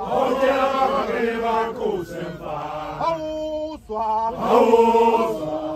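A Zulu regiment of men chanting in unison, with long held notes.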